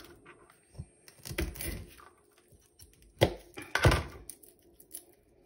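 Kitchen knife cutting garlic cloves on a plastic cutting board: a few scattered taps and cracks, the two sharpest close together a little past the middle.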